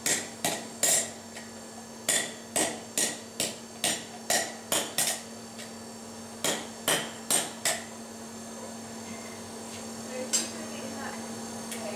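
Hammer blows on thin sheet steel, dishing a steel disc into a sconce bowl over a hole. The blows come in short runs of about two to three a second: three, then about eight, then after a pause four more, with one last blow near the end. Each blow rings a little.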